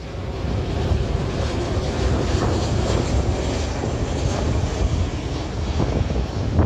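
Boeing 737-800 airliner passing low overhead on approach with its landing gear down, its two CFM56-7B turbofan engines giving a steady jet noise.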